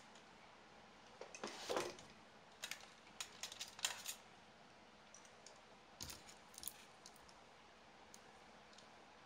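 Small hard plastic and metal parts and tools being handled on a workbench: light clicks and clatters in three clusters, about one and a half, three to four, and six seconds in.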